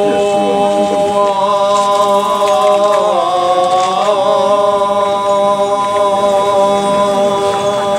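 Long held chanting: one steady sustained note with a brief dip in pitch about three seconds in.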